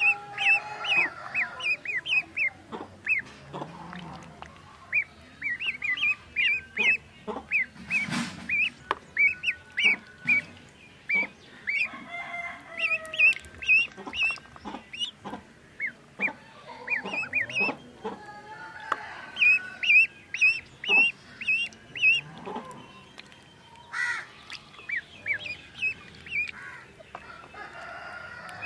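Ducklings peeping continually in quick runs of short, high chirps, with intermittent splashing as they bathe and flap in a tub of water.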